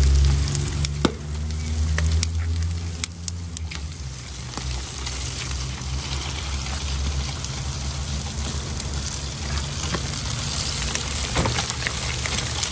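Pork slices sizzling on aluminium foil on a gas grill, with a few sharp clicks and scrapes of metal tongs turning them. A low rumble sits under the sizzle, loudest in the first few seconds.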